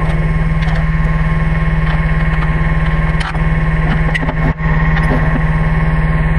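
Tractor engine idling steadily, with a few sharp metallic knocks from steel lift parts being handled between about three and four and a half seconds in.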